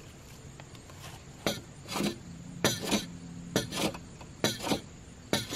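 Hand plane shaving the edge of a wooden 4x4 post in quick, short strokes: a sharp scrape about twice a second, starting about a second and a half in.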